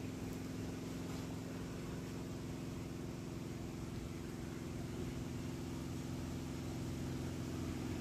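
A steady mechanical drone, an even low hum that stays unchanged throughout, from a machine running nearby.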